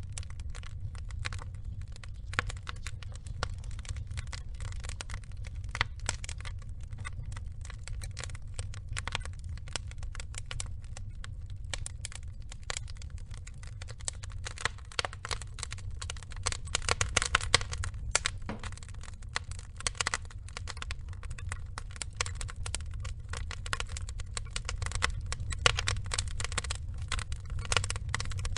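Burning wood logs crackling and popping in dense, irregular bursts over a low steady rumble, with a flurry of louder pops a little past the middle and again near the end.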